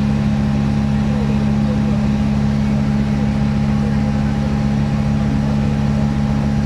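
Motorboat engine running steadily, a constant low drone that stays at one pitch.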